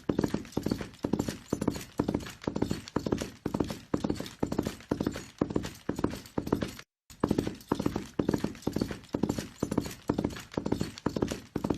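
Horse galloping: hoof beats in repeating clusters, about two strides a second, with a brief cut to silence about seven seconds in.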